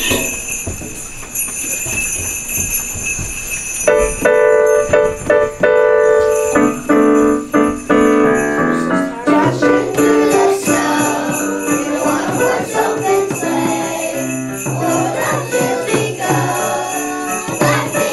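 Jingle bells shaken steadily; about four seconds in, piano chords come in and a children's class sings a Christmas song with piano accompaniment while the bells keep ringing.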